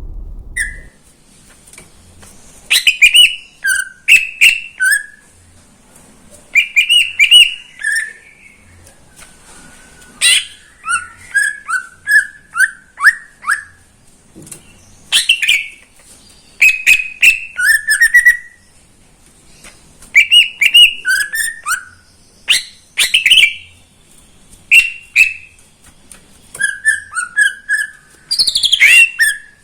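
A cucak ijo (green leafbird) sings loudly in repeated short bursts of sharp whistled notes mixed with clicks, with brief pauses between phrases.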